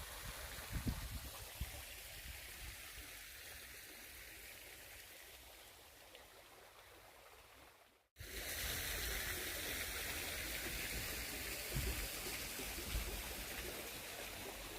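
Steady outdoor hiss of running water with low rumbles underneath; it cuts out about eight seconds in and comes back louder.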